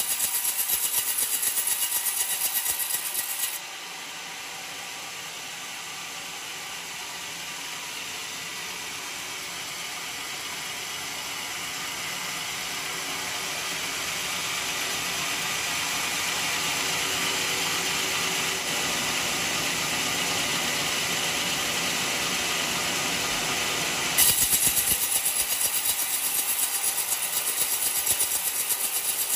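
Homemade band sawmill cutting through an old coconut log, a steady machine-and-blade noise with a fast ripple. About three and a half seconds in it drops abruptly to a quieter, even noise that slowly grows louder, and the louder rippling sound comes back suddenly near the end.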